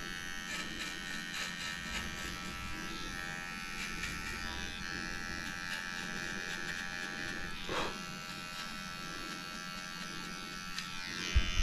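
Electric dog clippers running steadily while shaving the hair between a dog's paw pads, with a few loud knocks near the end.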